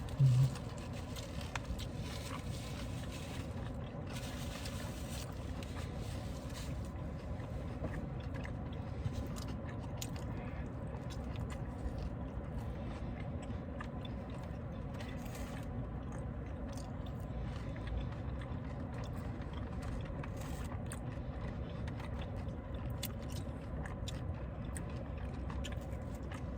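Close-miked chewing and mouth sounds of people eating fried chicken, with faint scattered clicks over a steady low background hum.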